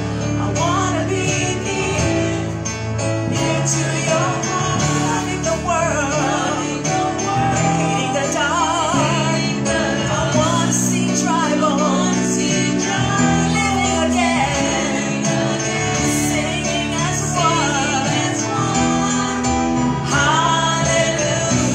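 A gospel worship song performed live: singers with microphones carry a wavering melody over sustained keyboard chords.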